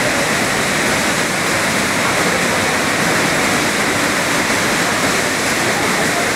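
Loud, steady rushing roar of the Saraswati river's white-water torrent plunging through a narrow rock gorge.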